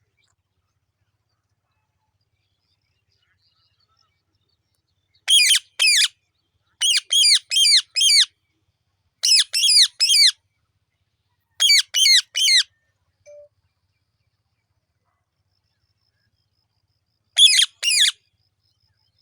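Parrot giving short, sharp squawks in quick groups of two to four, starting about five seconds in, with a final pair near the end after a pause.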